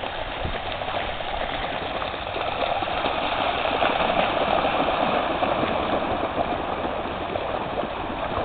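Several Vizsla dogs splashing as they run through shallow bay water: a steady rushing splash that swells a little in the middle.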